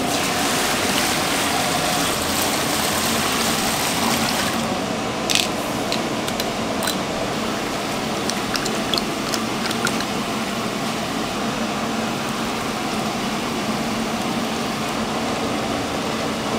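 Water running from a tap, shut off about four and a half seconds in, then a few light clicks and clatters over steady background noise.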